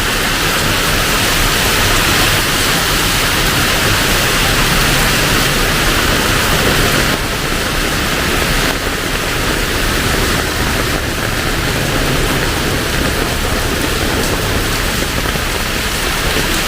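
Heavy rain pouring down: a loud, dense, steady hiss that eases slightly about seven seconds in.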